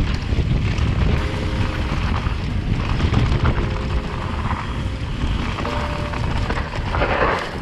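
Wind buffeting an action camera's microphone over the rumble and rattle of a mountain bike rolling fast down a gravel trail, with faint background music.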